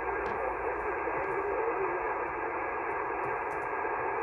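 Steady hiss and band noise from a shortwave single-sideband receiver tuned to an HF amateur band with no station transmitting, narrow and telephone-like in tone.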